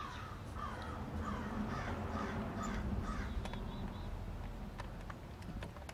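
A crow cawing over and over, about three calls a second, stopping a little past halfway.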